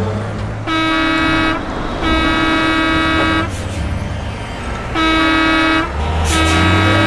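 Car horns honking in traffic: four long, steady blasts of about a second each, over a low traffic rumble.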